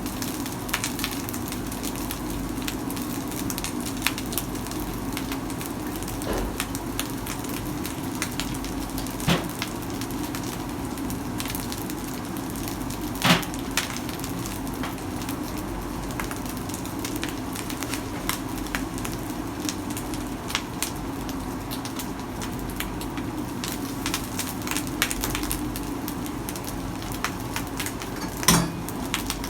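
Food crackling and sizzling in hot oil in a pan, over a steady low hum, with a few sharp knocks: one about nine seconds in, one about thirteen seconds in, and one near the end.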